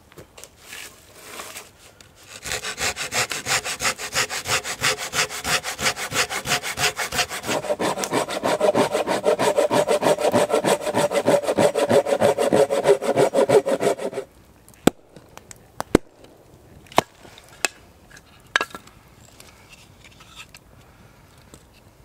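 Hand saw cutting through a piece of firewood in steady back-and-forth strokes for about twelve seconds. The strokes grow lower and fuller about halfway through. The sawing stops suddenly, followed by a few sharp knocks of wood.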